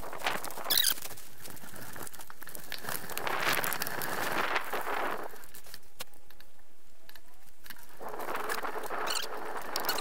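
Bicycle riding over a rough dirt path: tyre crunch and crackling with sharp rattling clicks. It quietens about halfway through as the bike rolls onto smooth asphalt, then the noise picks up again near the end.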